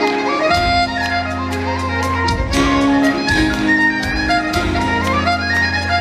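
Live Celtic band playing a tune: fiddle and accordion carrying a quick stepping melody over acoustic guitar and a steady beat.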